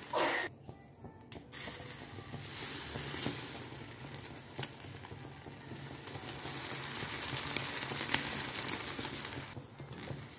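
Egg-battered cauliflower frying in hot oil in a nonstick skillet: a steady sizzle with small crackling spatters. The sizzle drops away for about a second near the start.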